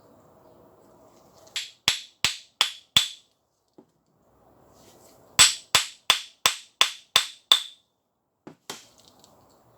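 Hammer blows on metal, each with a bright metallic ring: five quick strikes, a pause of about two seconds, then seven more at about three a second, and two lighter taps near the end.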